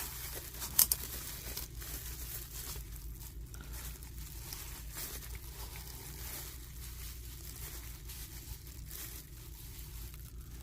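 Hands handling oil filter parts: two sharp clicks about a second in, then faint rustling and small handling noises over a low steady hum.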